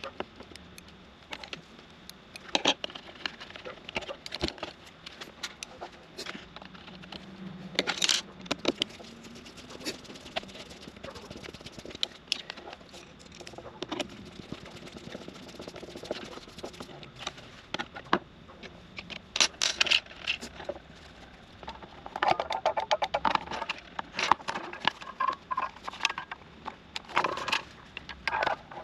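Handling noise from a plastic foot-switch housing and its small limit switch: scattered clicks, taps and scrapes of plastic and metal parts being fitted, with a screwdriver at a screw. Over the last several seconds there is a busier run of rattling clicks as the housing is closed up.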